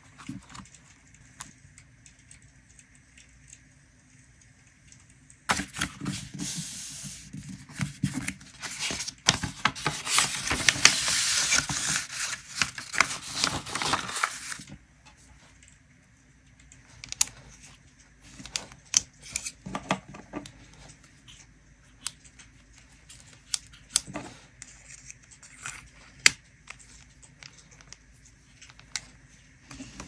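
Paper handling: a long stretch of loud paper rustling and crinkling, from a large folded paper sheet being opened out and smoothed, followed by scattered light taps and small paper rustles.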